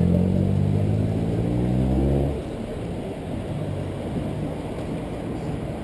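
A nearby motor vehicle's engine accelerating, its pitch slowly rising, then cutting off abruptly about two seconds in. Steady wind and road noise follow.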